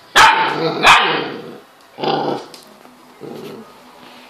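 Husky puppy barking in fright at a laptop: two loud barks in the first second, then softer ones about two and three seconds in.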